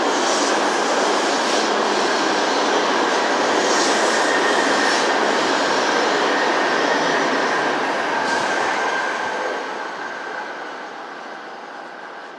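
Hokuriku Shinkansen train running along the station platform with a steady loud rush of rail noise that dies away over the last few seconds as it moves off.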